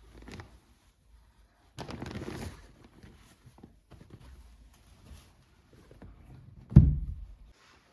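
Household handling sounds: a short rustle about two seconds in, light knocks, and a heavy thump near the end.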